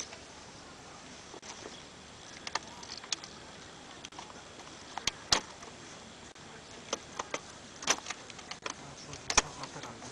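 Folding kayak's frame parts clicking and knocking as the frame is fitted into the hull skin: irregular sharp clicks and clacks, a few of them louder, over a steady hiss.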